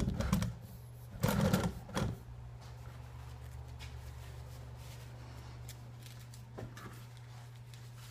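Knocks and scraping of a phone camera being handled and set down on a workbench during the first two seconds. After that there is a steady low hum, and near the end a faint rustle of work gloves being pulled on.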